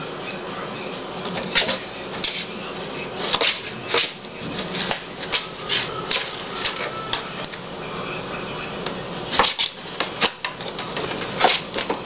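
Kitten scratching and batting inside a cardboard box: irregular scratches and taps on the cardboard over steady background noise, busiest about a third of the way in and again near the end.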